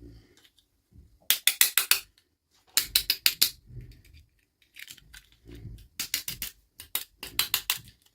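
Quick runs of sharp clicks, in four bursts of about half a second each, with soft handling noise between them.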